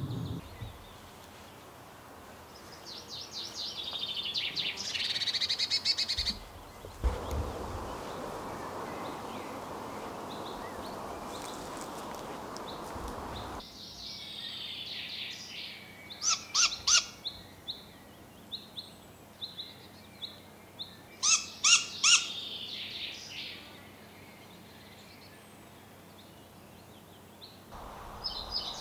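Great grey owl fledglings giving begging calls: several bouts of high, wavering calls, with a few sharp clicks in between. A stretch of steady rushing noise comes between the first two bouts.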